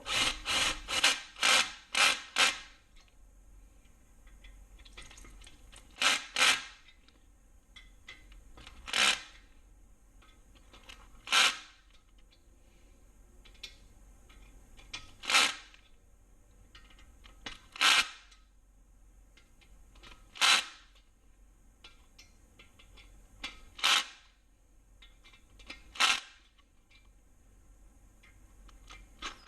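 Cordless drill run in short trigger bursts, driving ARP main studs into the oiled threads of an LS engine block: a quick run of five or six bursts at the start, then single or paired bursts every few seconds.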